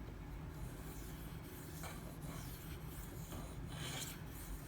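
Super Gold (SG2) steel knife blade being stroked across a Shapton Pro 5000-grit whetstone with a slurry built up: a soft, wet scraping rub repeated stroke after stroke.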